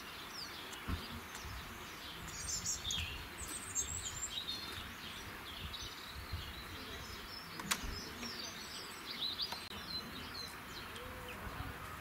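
Small songbirds chirping and twittering outdoors: many short, quick calls from several birds over a steady background hiss, with a single sharp click a little before eight seconds in.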